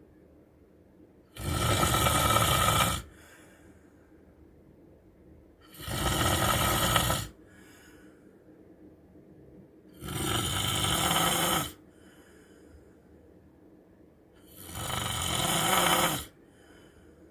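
A man snoring heavily: four loud snores on the in-breath, each about a second and a half long and coming about every four seconds, with a faint breath out between them.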